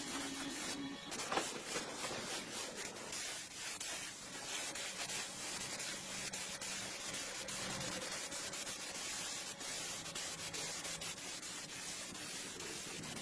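Sanding: abrasive rubbing on a surface, a steady scratchy noise made of many short strokes.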